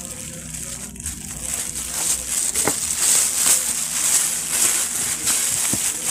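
Thin plastic shopping bag rustling and crinkling as hands crumple it and pull it off a cardboard product box, with a couple of sharper crackles.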